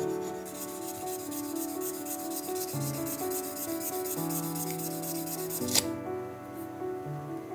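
Fine P1500 pink abrasive pad rubbing quickly back and forth over the painted metal body of a 1/43 scale model car, a dry scratchy sanding sound that stops with a sharp click near the end. Soft background music plays throughout.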